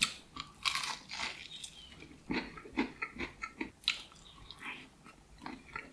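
A person biting into and chewing a breaded, crispy-coated fried chicken wing (a KFC hot wing), giving a run of short, irregular crunching clicks.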